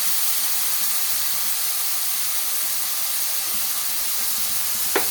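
Mushrooms and cumin seeds sizzling steadily in hot fat in a frying pan, with one sharp click near the end.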